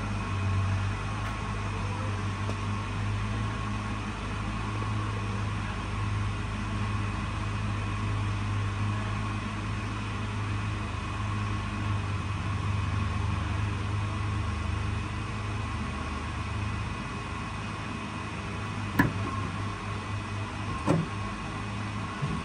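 Stratasys Objet260 Connex3 3D printer running with a steady mechanical hum and a thin whine; the deepest part of the hum drops away about three-quarters of the way through. Two sharp clicks about two seconds apart near the end.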